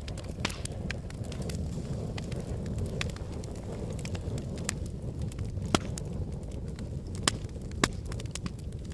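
Wood fire in a fireplace crackling over a low steady rumble of the flames, with many small crackles and a few loud sharp pops, the three strongest in the latter half.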